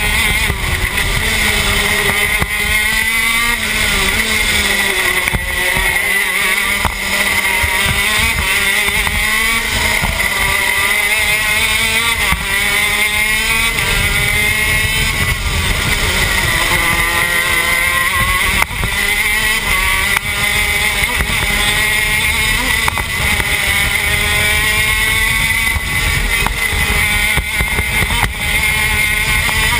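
TM K9c 125cc two-stroke shifter kart engine at racing speed, heard from on board: the note climbs repeatedly as it revs out through the gears and drops back on each shift and under braking.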